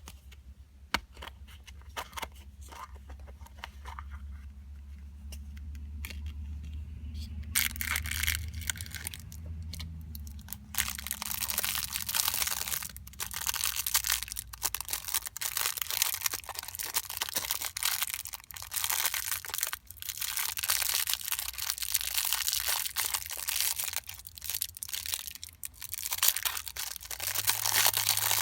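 Scattered light clicks and taps, then from about eight seconds in, continuous crinkling and tearing of a gacha toy's plastic wrapper as it is unwrapped.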